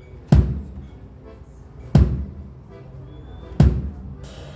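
One drum of a drum kit struck three times, evenly and slowly, about a second and a half apart, each deep hit ringing down: a single drum being checked on its own during a soundcheck.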